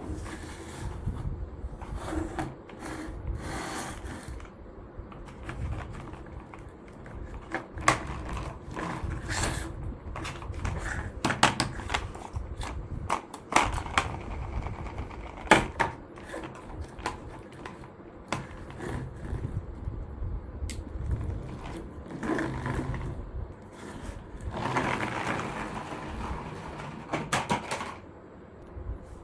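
Irregular clicks, knocks and scrapes of small hard objects being handled, the sharpest knocks in the middle stretch and a longer scraping run near the end, over a low rumble.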